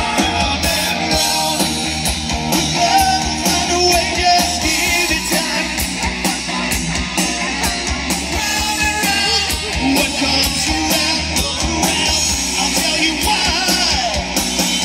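A live 1980s-style hard rock band playing through a PA system: a lead singer over electric guitar and a steady drum beat.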